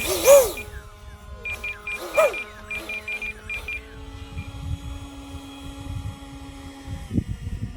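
Electronic beeps in quick groups, with a few short rising-and-falling whines, from a radio-controlled electric ducted-fan F-35 model jet before flight. From about four seconds in there is a steady low hum.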